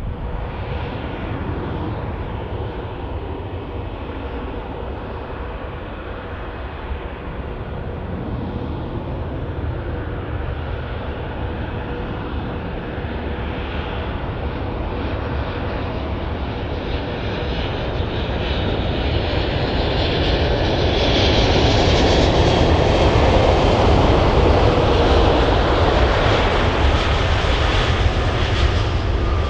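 Airliner engines running, a steady roar that grows louder through the second half to a peak near the end as the aircraft passes close.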